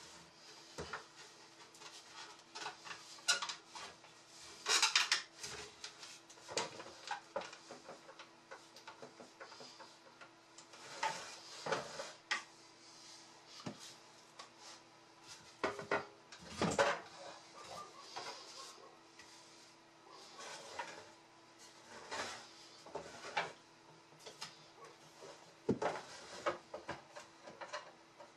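Wooden chair legs being handled and fitted into an old bentwood chair's seat frame: irregular wooden knocks and clacks with a few short scraping rubs, the longest about five, twelve and seventeen seconds in.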